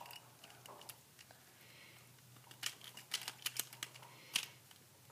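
Plastic pyraminx puzzle clicking as its layers are twisted quickly by hand. A few scattered clicks are followed by a dense run of sharp clicks from about two and a half seconds in, the loudest one near the end.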